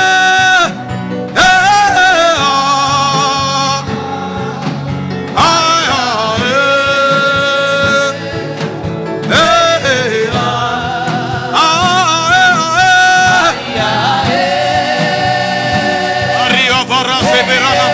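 Music: a solo voice singing long, wavering held notes in phrases a few seconds apart, over a steady instrumental backing.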